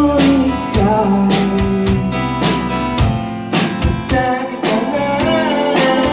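Live band playing through a club PA: strummed guitars with a man singing.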